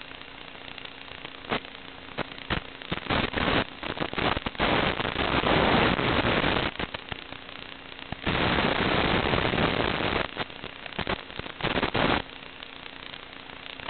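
Bursts of crackling static hiss that come and go irregularly, loudest for two stretches of about two seconds each, over a faint steady hum: the noisy audio of an analog FPV drone's video radio link.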